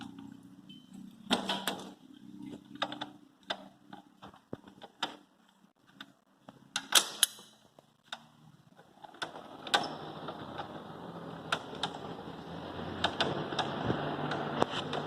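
Sharp metal clicks and knocks from hand tools and parts while a motorcycle clutch assembly is taken apart. A steady background noise comes in about nine seconds in.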